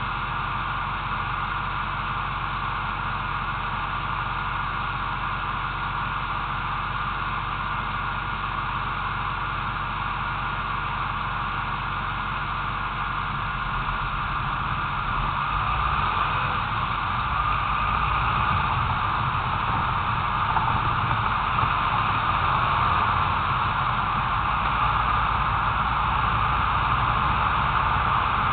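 Steady hiss and wind-like noise from a low-mounted action camera riding on a car in traffic, over the low rumble of the vehicle moving along the road; the rumble grows slightly louder about halfway through.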